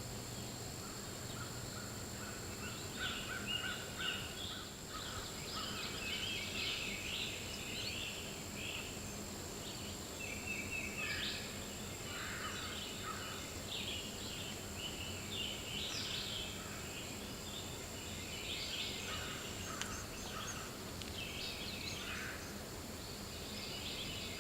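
Faint wild turkey gobbler gobbling several times, with songbirds calling around it.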